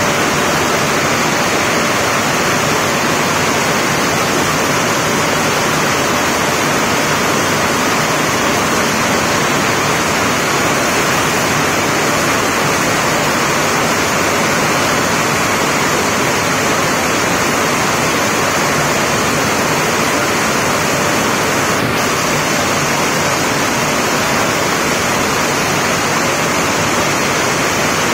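Torrential monsoon rain pouring onto a concrete yard, with water streaming off roof edges, a loud, steady rushing hiss that never lets up.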